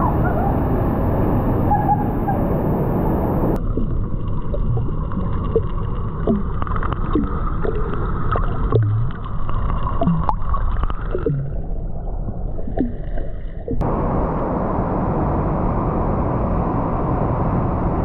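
Waterfall pouring into a cave pool, a loud steady rush of falling water. About three and a half seconds in the sound turns muffled and underwater, with bubbling, gurgling and short squeaky chirps, until about ten seconds later it breaks back into the rush of the falls.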